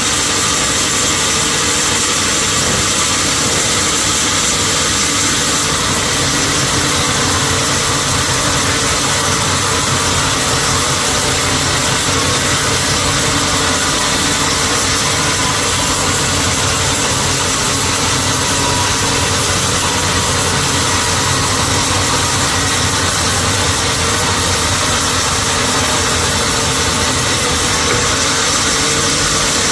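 Sawmill machinery running steadily, a constant loud hum and hiss with no pauses or changes in pitch.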